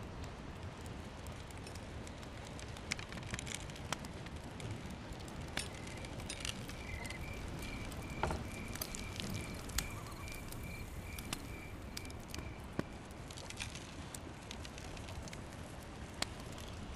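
Wood fire crackling: a steady hiss with scattered sharp pops. For about six seconds in the middle, a high chirp repeats evenly, about three times a second.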